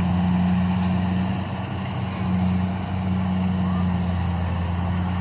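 Rice combine harvester's engine running steadily at working speed, a continuous low drone.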